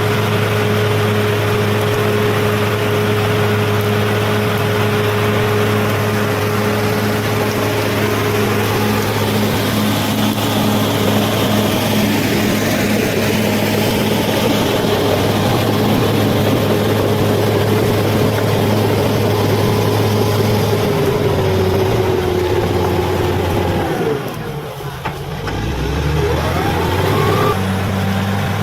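Bulldozer's diesel engine running steadily with a constant low hum. About 24 seconds in, its note sinks and the sound dips for a moment, then picks up again with a rising whine.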